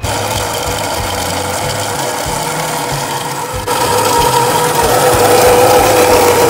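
Baratza Virtuoso electric conical burr coffee grinder running, grinding whole coffee beans: a steady motor whine with a crunching rattle, getting louder about four seconds in.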